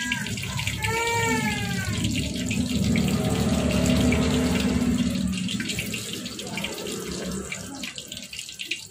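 Chicken pieces deep-frying in hot oil in a wok under a glass lid: steady sizzling and crackling that swells to its loudest about four seconds in and then eases off. A short pitched call sounds in the background about a second in.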